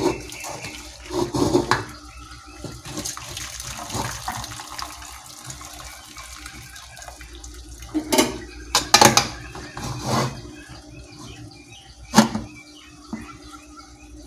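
Starchy cooking water pouring out of a steel pot of boiled rice past a steel plate held over its mouth, draining the rice. A few sharp metal knocks of plate and pot come through the steady pouring, the loudest near the end.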